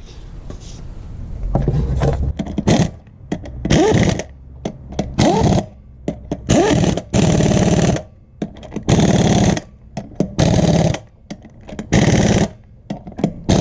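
Impact wrench running the lug nuts onto a Jeep ZJ front wheel, in about nine short rattling bursts of up to a second each, the motor pitch rising in each burst.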